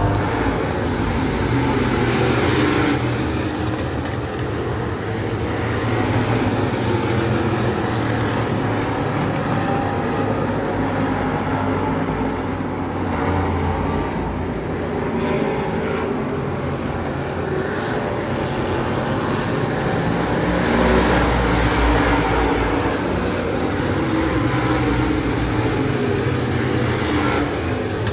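Several dirt-track race cars running laps together, their engines blending into a steady droning rumble that swells and fades as the pack passes, heard from the grandstand.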